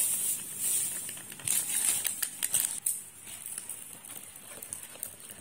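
A plastic stirrer scraping and clicking against the inside of a paper cup as matcha powder is mixed into water. The quick scrapes come thickest from about one and a half to three seconds in, then thin to a few light ticks.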